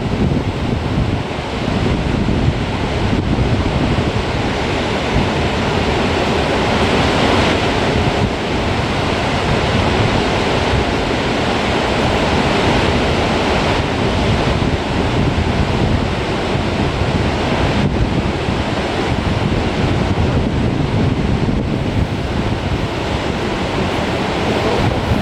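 Steady rush of the Gullfoss waterfall, a large falling river, with wind buffeting the microphone.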